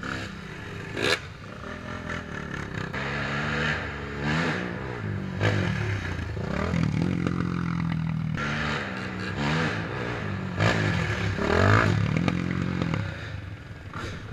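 Dirt bike and ATV engines revving, their pitch rising and falling again and again with the throttle as the machines climb and pass, with a few sharp clattering knocks.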